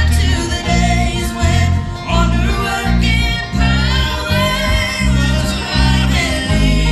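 Live gospel music: voices singing over plucked guitar, with a strong low bass line moving in steady, even steps.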